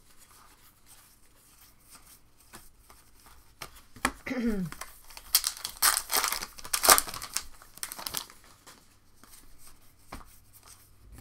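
Trading card pack wrapper being torn open and crinkled: a run of crackling tears and rustles that starts about five seconds in.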